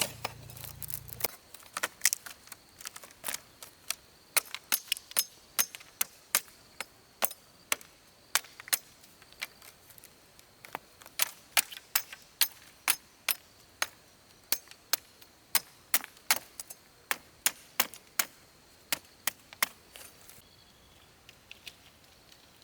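Rebar being tied with steel wire and hand tools: rapid, light metallic clicks and snips, irregular at about two or three a second, thinning out near the end.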